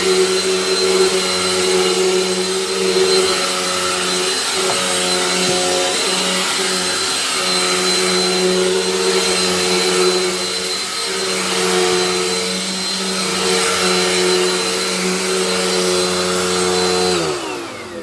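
Dirt Devil Dynamite upright vacuum cleaner running with its newly fitted belt and brush roll: a steady motor hum with a high whine over it. About seventeen seconds in it is switched off and winds down, falling in pitch.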